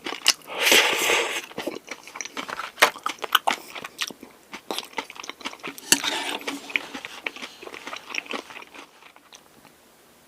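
A person eating close to the microphone: crunchy bites and wet chewing in quick, uneven clicks. The sounds thin out and stop about nine seconds in.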